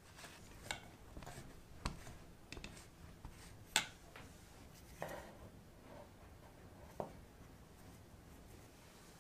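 Bottom of a drinking glass pressing buttery biscuit crumbs flat into a metal cake tin. Soft crunching and rubbing is broken by a handful of light knocks, the sharpest about four seconds in.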